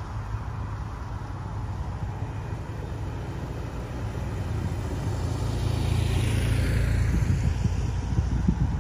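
A motorcycle approaches and passes close by, growing steadily louder and then dropping in pitch as it goes past, over a steady low rumble.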